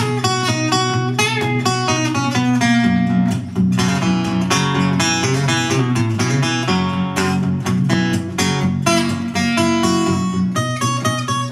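Solo acoustic guitar fingerpicked in a boogie-woogie style: a steady bass line on the low strings under quick plucked melody notes.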